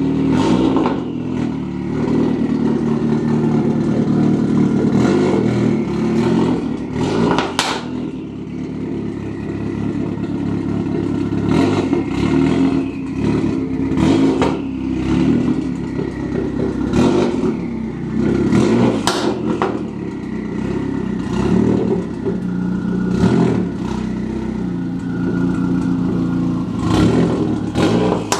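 Catless Dodge Caliber's four-cylinder engine running at low revs as the car reverses slowly into a garage, the exhaust note swelling and easing with the throttle, with a few sharp cracks along the way.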